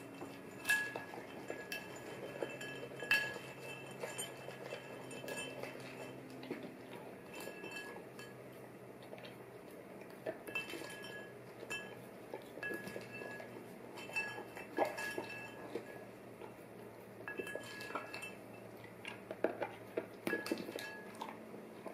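Metal spoon clinking and scraping against a ceramic cereal bowl at uneven intervals, each clink ringing briefly.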